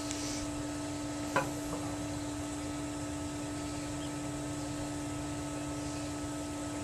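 A steady, even hum, with one short sharp sound about a second and a half in.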